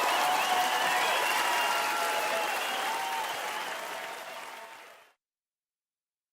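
Audience applause, fading down and then cutting off to dead silence about five seconds in.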